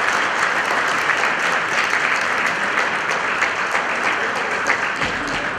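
Audience applauding: dense, steady clapping that starts to ease off near the end.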